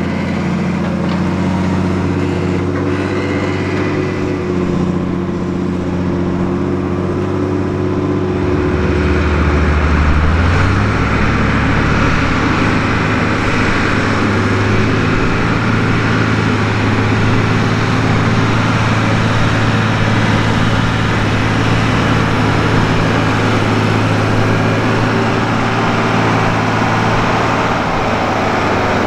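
Fendt Favorit 514 C tractor's six-cylinder diesel engine running steadily under load as it drags a levelling blade through loose soil. The engine note steps up a little about a third of the way in.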